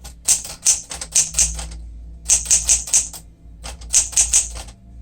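1965 Sears Citation 12 manual typewriter, a Smith-Corona-built machine, being typed on: quick runs of sharp keystrokes striking the platen, three bursts with short pauses between.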